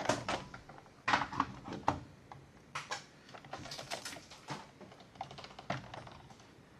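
Irregular clicks and clacks of a mechanical keyboard being handled and set down, its keys and case rattling.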